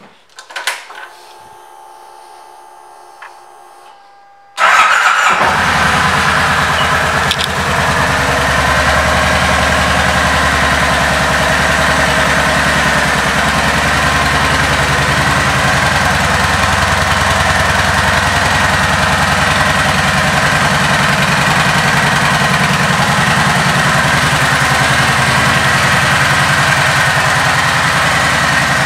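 Kawasaki Vulcan 1700 Vaquero's 1,700 cc V-twin engine. After a few seconds of faint hum, it starts about four and a half seconds in, briefly at its loudest, then settles into a steady idle.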